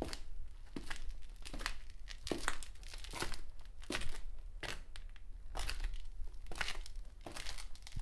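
Footsteps walking at an even pace, about one step every 0.8 seconds, each step a short noisy crunch, over a low steady hum.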